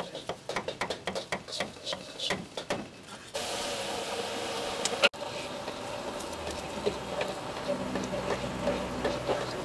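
A steel cleaver chopping tomatoes on a wooden chopping board, quick knocks a few a second. About three seconds in it changes abruptly to a steady hiss of wok cooking, with eggs sizzling in a black wok and a metal spatula scraping it near the end.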